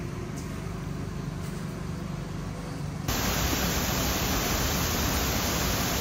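A steady low rush with a faint hum, then, about three seconds in, the louder even rushing of a waterfall pouring over a rock ledge.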